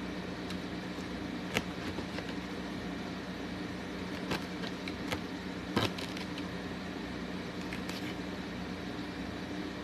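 Eating at a table: a few sharp clicks, as of cutlery or food handling against a plate, scattered over a steady low hum of room equipment.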